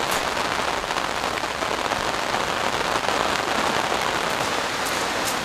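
Rain falling on a tarp overhead, heard from underneath: a steady, dense hiss of drops, with a couple of sharper single drop hits near the end.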